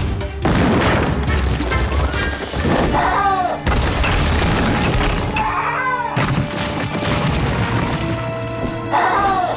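Cartoon action scene with dramatic music, loud booming and crashing effects, and a few short high cries over the top.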